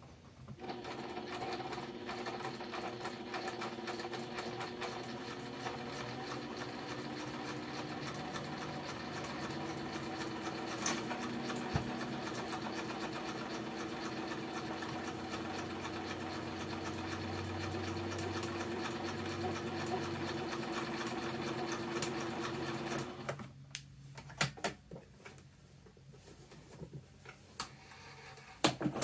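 PFAFF Synchrotronic 1229 sewing machine running at a steady speed, stitching through cloth with a fast, even rattle. It stops abruptly near the end, and a few sharp clicks follow.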